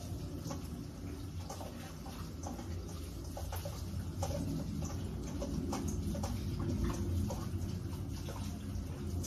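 Kitchen work at the counter: a steady rush of running water with scattered short clinks and clacks of dishes and utensils.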